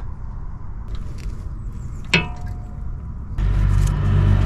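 A single sharp metallic clink with a brief ring about two seconds in, from the hex-bit socket and tools on the 5 mm Allen bolt holding a car's front wheel speed sensor. Near the end a steady low hum comes in.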